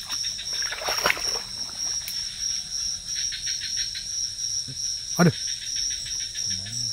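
Chorus of night insects: a steady high-pitched shrill with a rapid pulsing trill over it that comes and goes.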